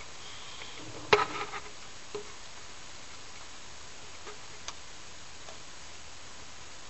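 A sharp click about a second in, followed by a short cluster of smaller clicks and a few faint ticks later, over a steady hiss.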